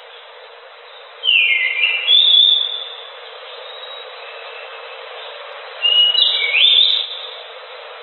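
Anis macan thrush singing two short phrases of whistled notes, about a second in and about six seconds in, each made of quick falling and rising slurs, over a steady hiss.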